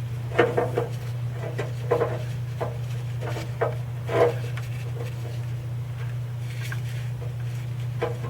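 Scattered light knocks and clatter of hand work on tools and parts, mostly in the first half, over a steady low hum.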